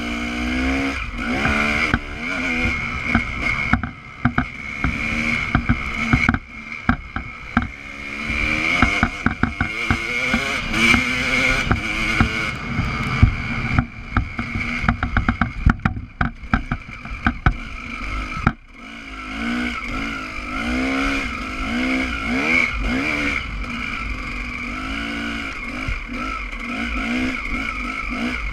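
Off-road motorcycle engine at speed, revving up and down as the throttle opens and closes, with the throttle briefly closing about four, six and a half and eighteen seconds in. Through the middle stretch, a rapid run of knocks and clatter comes from the bike.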